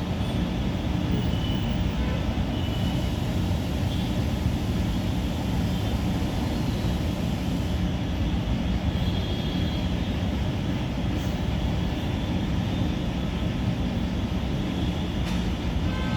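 Steady noise of heavy road traffic from a busy main road nearby.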